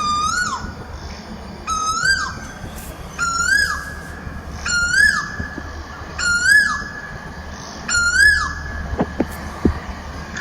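A bird calling over and over: a loud whistled note that rises and then drops away sharply, six times about a second and a half apart, each call pitched a little higher than the last.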